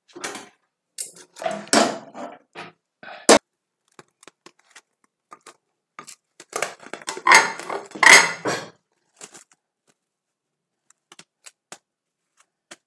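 A wooden spoon scraping soft cabbage fufu out of an aluminium saucepan, with one sharp knock, then plastic cling film crinkling as hands wrap the dough and shape it into a ball.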